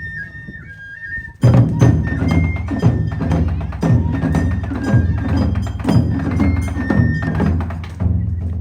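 Taiko ensemble on nagado-daiko drums. A high flute-like melody plays alone for about the first second and a half, then the drums come back in hard, with dense, rapid strokes and wooden clicks under the continuing high notes.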